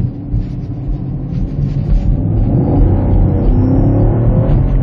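The 2016 Camaro SS's 6.2-litre LT1 V8, heard from inside the cabin, pulling under hard acceleration. It gets louder about two seconds in, and its pitch climbs more than once as it revs up through the gears.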